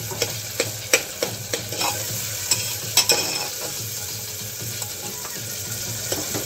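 Metal spoon scraping and clinking against the inside of a pressure cooker while vegetables are stirred as they fry in oil, over a steady sizzle. The clinks come several times a second for the first three seconds, then thin out.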